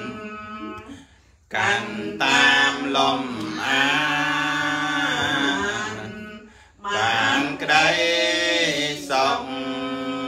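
Buddhist devotional chanting by a male voice in long, drawn-out melodic phrases. It breaks off briefly about a second in and again a little past the middle.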